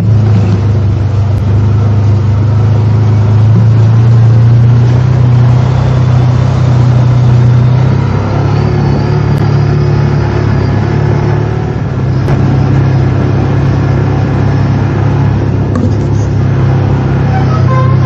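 ATV engine running under way, a steady drone that shifts in pitch twice as the throttle changes, about eight and twelve seconds in.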